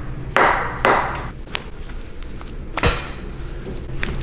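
Sharp knocks and clicks from hands and the treatment table during a chiropractic adjustment. A sudden knock with a short rush of noise comes about a third of a second in, then a light high click, a sharp tap near the three-second mark and a faint one near the end.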